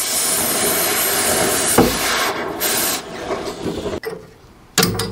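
A cutting torch hissing steadily as it cuts through the steel recoil spring of a Cat D4's track adjuster, with a short thump about two seconds in. The hiss stops about three seconds in, and a sharp knock comes near the end.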